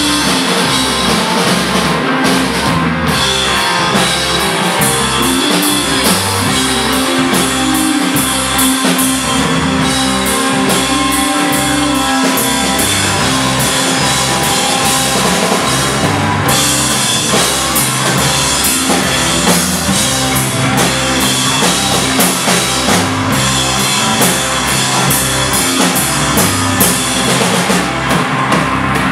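Live rock band playing loud: drum kit pounding a steady beat under electric guitar and electric bass.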